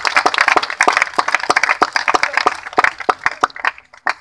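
Audience applause: many hands clapping, which thins out to a few scattered claps and dies away near the end.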